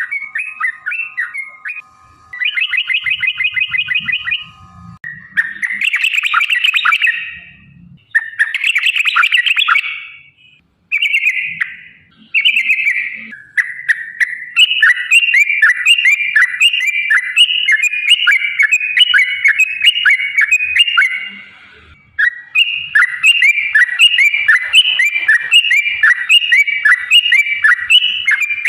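Yellow-vented bulbul (trucukan) singing. Short, bubbly chattering phrases with brief gaps come first; from about halfway it switches to long, fast, unbroken rolling strings of notes, the 'ropel panjang' long roll.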